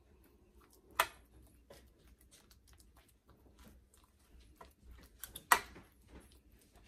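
Metal spoon pushing a soft bread-and-banana mixture around a metal baking pan, with light scraping and clicking and two sharp knocks of the spoon on the pan, one about a second in and one well past the middle.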